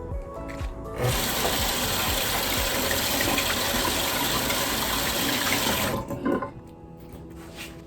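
Water running in a steady rush that cuts in suddenly about a second in and stops suddenly some five seconds later, over background music.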